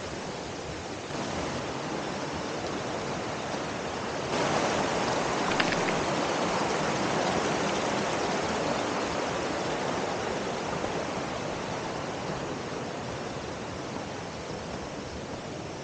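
Shallow rocky stream rushing over stones in a steady water noise that jumps louder about four seconds in, then slowly fades.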